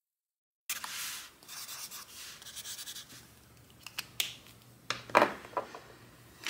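An Ohuhu art marker's felt tip rubbing and scratching across sketchbook paper, starting about a second in, followed by a few sharp clicks.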